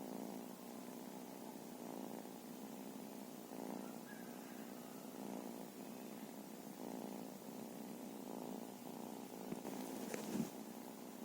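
A cat purring steadily, the purr swelling and easing with each breath about every one and a half seconds. A brief knock sounds near the end.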